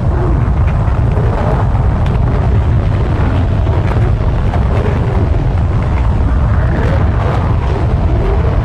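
Loud, steady low rumble of tornado-force wind buffeting a camera microphone.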